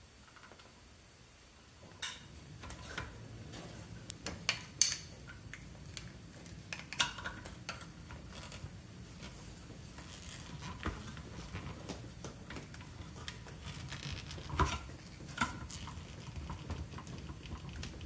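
Scattered light plastic clicks and knocks from handling an RO membrane housing. A tube is pulled from its push-in collar fitting, then hands strain to twist off the housing cap, which is stuck on very tight.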